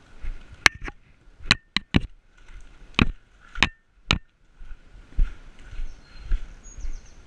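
Footsteps on a debris-strewn concrete floor with gear knocking, opening with a run of sharp, irregular clicks and knocks over the first four seconds, then settling into softer, evenly paced steps.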